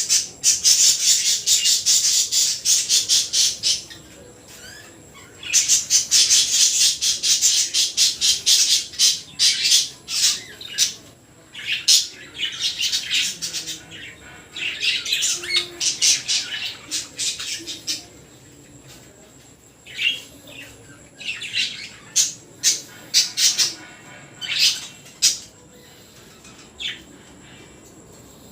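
Baby budgerigar calling: long bouts of rapid, raspy, high-pitched chirps, then only a few scattered single calls in the last third.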